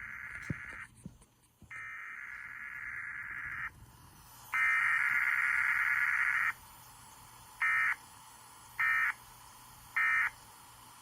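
Emergency Alert System SAME data bursts, a buzzing digital tone sent by an EAS encoder/decoder relaying a Required Weekly Test. The end of one two-second header burst fades out about a second in, then two more header bursts play, the third louder. Three short end-of-message bursts follow in the last few seconds.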